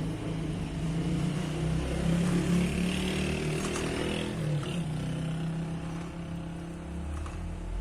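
A motor vehicle's engine running, loudest about two to three seconds in and then easing off slightly.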